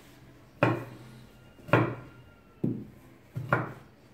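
Knife slicing a red pepper on a wooden cutting board: four sharp knocks of the blade hitting the board, about one a second.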